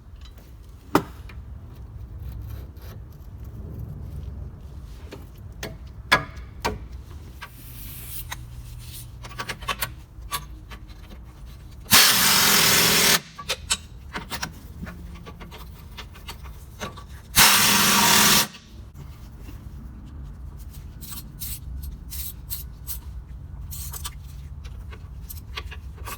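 Hand-tool work on a truck's front-end steering parts: scattered metal clicks and knocks, with two loud, even bursts of a power tool about a second long, a few seconds apart, near the middle.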